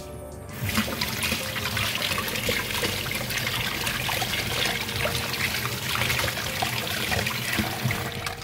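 Kitchen tap running into a stainless-steel sink, its stream splashing over a hand rinsing a bunch of curry leaves. The steady splashing starts about half a second in.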